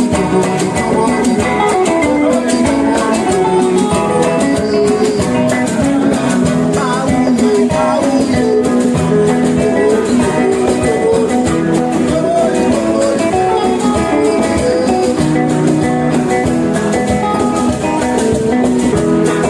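Live band music: a plucked-string instrument playing melody lines over steady percussion, with some singing.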